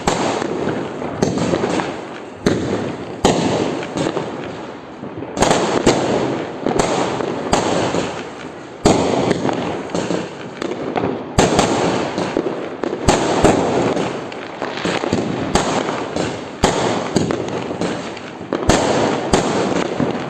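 Fireworks and firecrackers going off: dozens of sharp bangs at irregular intervals over a continuous crackle.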